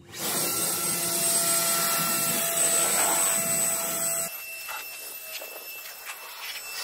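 Electric leaf blower running: a steady rush of air with a high whine from its fan motor. About four seconds in it drops suddenly to a quieter, thinner whine and keeps going.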